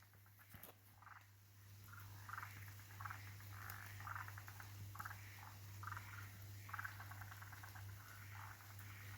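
Faint frogs calling: many short, rapidly pulsed trills repeating every half second to a second, over a steady low hum.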